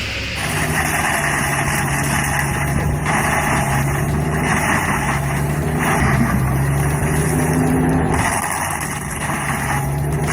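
Heavy machine's engine running steadily, with intermittent surges of harsher noise over it.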